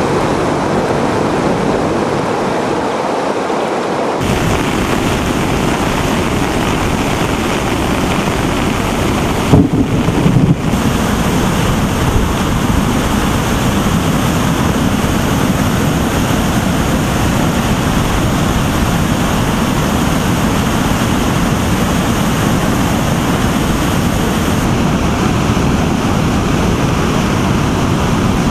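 Floodwater rushing through the open gates of a dam spillway: a dense, steady roar of water, with a brief loud buffeting about ten seconds in that sounds like wind on the microphone. For the first four seconds, before it, a vehicle's engine runs as it drives through floodwater with water splashing.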